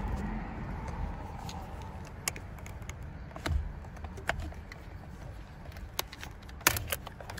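Scattered small clicks and knocks of hands working the plastic clips and wiring connectors behind a steering-wheel airbag, a second or so apart with a quick cluster near the end, over a low steady rumble.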